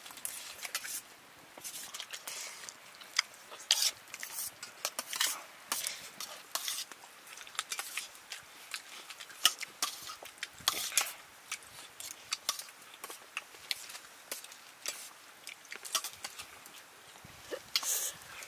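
Irregular light clicks, knocks and scrapes of utensils against dishes, some louder than others.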